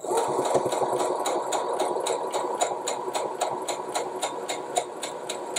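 Electric sewing machine stitching a seam, starting suddenly, its motor humming steadily under an even ticking of the needle at about five stitches a second.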